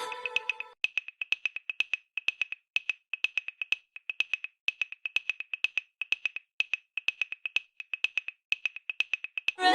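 Electronic synthesizer sound: a sustained chord dies away in the first second, then a long run of short, high-pitched wood-block-like ticks follows in quick small clusters.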